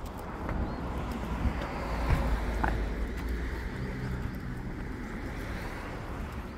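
A vehicle passing on the road, growing louder to a peak about two seconds in and then fading away.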